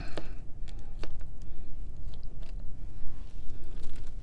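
A plastic spoon scraping and clicking against a plastic food container as food is scooped out, a scatter of short, light clicks over a steady low hum.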